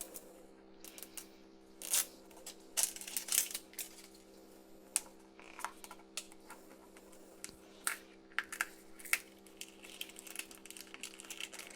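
Hands handling a plastic-wrapped toy capsule: scattered crinkles and small clicks, irregular and brief, over a faint steady hum.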